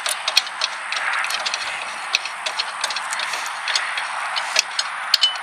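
Light, irregular metal clicks and ticks as a hand-turned set-screw knob on a golf cart's folding frame is unscrewed, over a steady background hiss.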